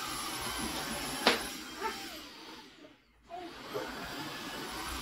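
Vacuum cleaner running with a steady rushing noise, with a sharp knock about a second in. The sound drops away to almost nothing about three seconds in and comes back a moment later.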